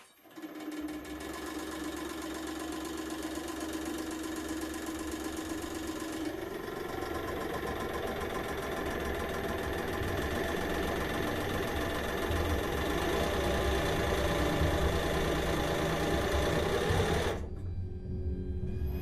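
100-ton hydraulic press's pump motor running steadily. Its sound changes about six seconds in, getting fuller and lower, and it cuts off sharply near the end before starting again more quietly.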